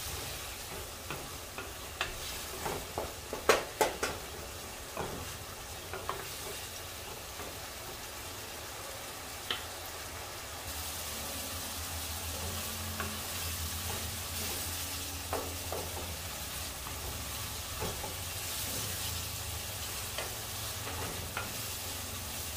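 Wooden spoon stirring meat, tomato and onion frying in berbere and oil in a nonstick pot, with a steady sizzle. The spoon knocks sharply against the pot several times in the first few seconds, and the sizzle grows louder about halfway through.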